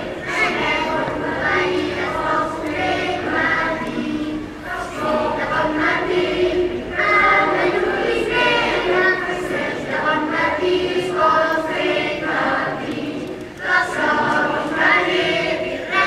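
Mixed choir of children and adults singing a Catalan caramelles song, with a brief pause between phrases about three-quarters of the way through.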